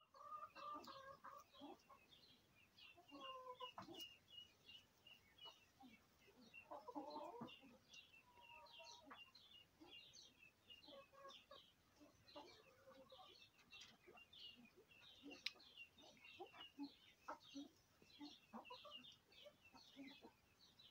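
Faint soft clucking calls from Romanian pheasants, coming every few seconds, over a constant patter of many short, high chirps.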